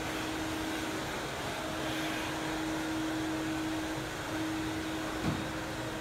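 Upright stick vacuum cleaner running with a steady hum, with a single thump about five seconds in.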